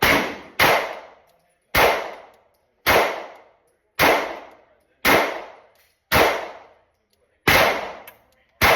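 Glock 19X 9mm pistol with a compensator fired nine times in slow, steady succession, about one shot a second, each report ringing out and fading before the next.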